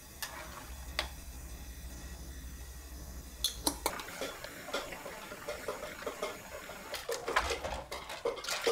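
A wooden spoon knocks twice against a pan, then a pan of mussels boils with a crackly bubbling. Mussel shells click and clatter against each other and the pan as the spoon stirs them, busiest in the last couple of seconds.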